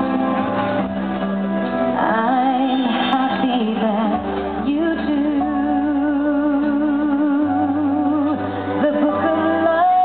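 Live female vocalist singing with a band accompaniment of drums and strings, holding long notes with vibrato, one drawn out for about three seconds midway.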